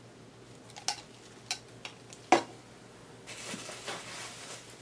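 A few light clicks and clinks of small objects being handled and set down on a table, with one sharper knock a little past two seconds in, then a soft rustling toward the end.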